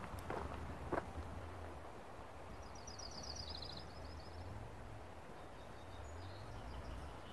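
Quiet outdoor ambience: a couple of footsteps in the first second, then a low steady rumble, with a short, rapid, high-pitched bird trill about three seconds in and a few faint chirps near the end.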